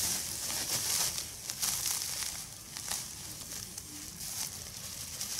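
Wheat bran pouring out of a woven plastic sack onto a heap of feed, a steady hiss with the sack rustling as it is shaken and tipped.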